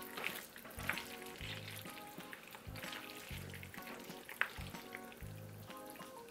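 Wooden chopsticks stirring and lifting cheese-topped tteokbokki in a takeout bowl: sticky, wet squelching of sauce and melted cheese with a couple of sharp clicks of chopsticks against the bowl. Background music with a repeating bass note plays underneath.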